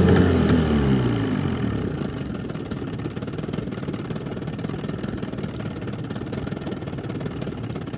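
Johnson 20 hp two-stroke outboard motor running on a carburettor swapped in from an Evinrude 25: its revs drop away over the first two seconds and it settles into a steady, loping idle.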